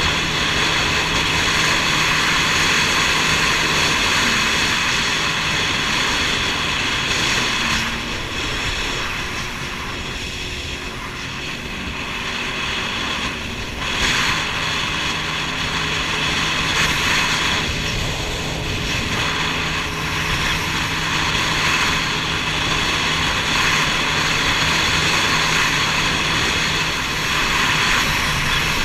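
Jet ski engine running at speed, a steady loud drone that eases off for a few seconds about a third of the way in and picks up again around the middle.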